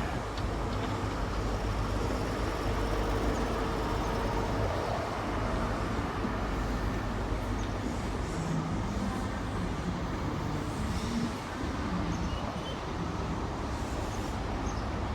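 GWR Class 43 HST 'castle set' running slowly into the platform: the diesel power car and carriages making a steady, continuous low rumble as the train arrives.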